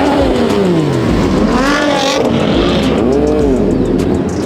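Car engines revving hard and repeatedly, the pitch climbing and falling again and again, with a second engine revving higher about two seconds in.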